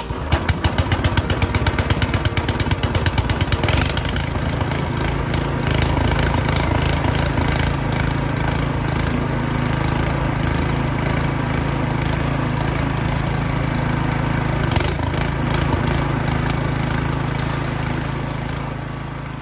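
Toro Snowmaster 724 QXE snowblower's single-cylinder four-stroke engine started for the first time: it fires in loud, uneven pulses for the first few seconds, then settles into a steady run. The auger is turning near the end.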